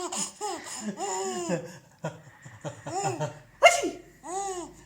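Young child laughing in repeated short bursts, with one sudden loud sneeze about three and a half seconds in.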